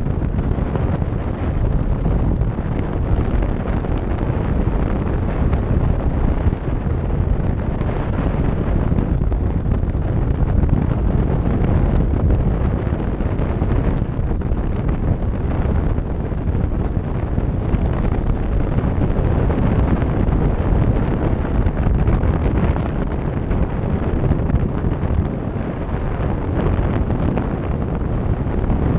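Steady wind rush over the microphone of a motorcycle riding at road speed, a dense low roar with no distinct engine note standing out.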